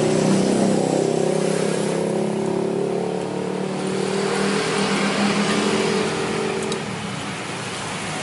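Road traffic: the steady hum of a motor vehicle engine, with a faint hiss of passing traffic, easing off about seven seconds in.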